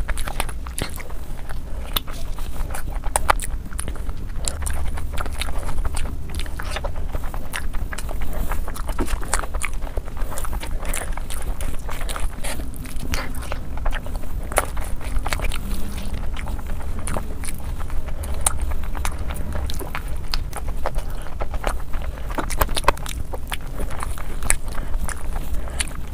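Close-miked eating sounds sped up to double speed: rapid chewing, biting and mouth smacks on rice, chicken and egg curry eaten by hand, a dense stream of quick clicks and smacks.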